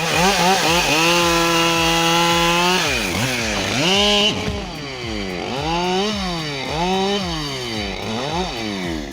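Two-stroke chainsaw running at full throttle for about two seconds, then dropping off and being revved up and down about once a second, as happens when the saw is worked through a cut.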